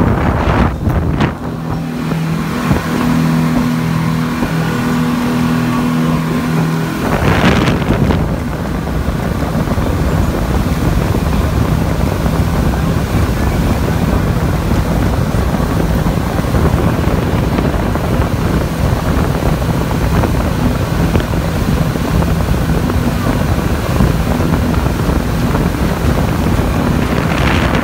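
Speedboat engine running at cruising speed with a steady low drone, over the rush of the boat's wake and wind buffeting the microphone. A louder rush of wind and water comes about seven seconds in.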